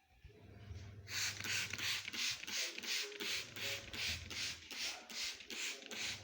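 Back-and-forth scrubbing or wiping strokes on a surface, a rhythmic hiss about three strokes a second, starting about a second in.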